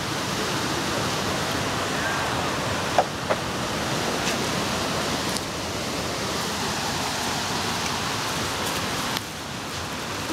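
Steady rushing of a nearby river, an even hiss of running water, with two short clicks about three seconds in.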